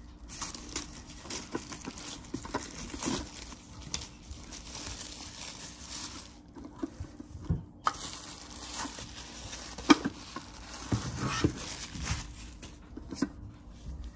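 Plastic bag and clear plastic wrap rustling and crinkling as they are pulled off a plastic treat-dispenser toy. A sharp knock of plastic on the table comes about ten seconds in and is the loudest sound.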